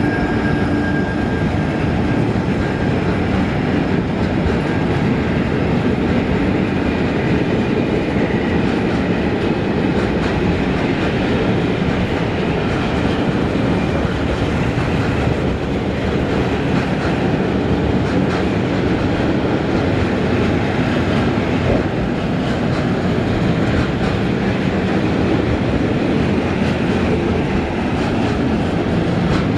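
A long freight train of tank wagons rolling past at steady speed: a continuous rumble and clatter of wagon wheels on the rails, with no let-up.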